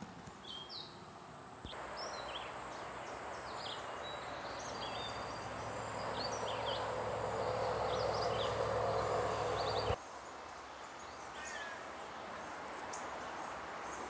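Small birds chirping, with many short high calls, over a steady rushing noise that grows louder and then cuts off abruptly about ten seconds in; afterwards a quieter outdoor background with a few calls.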